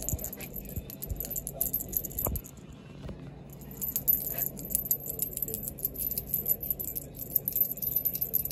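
Light, rapid metallic jingling, like something small being shaken, over a steady low hum. The jingling stops about two and a half seconds in and starts again a second later.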